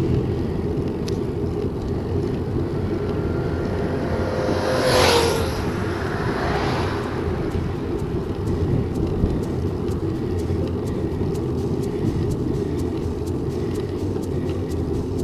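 Steady wind rumble on the microphone of a moving bicycle, with a motor vehicle passing close about five seconds in, rising and fading away over a couple of seconds.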